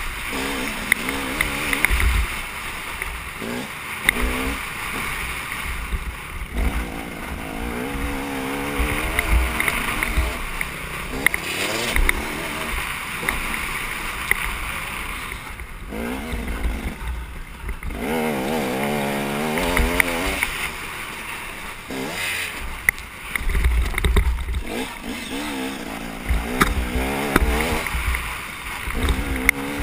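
KTM dirt bike engine revving hard and dropping back again and again as it accelerates and shifts through the gears, with bursts of low rumble mixed in.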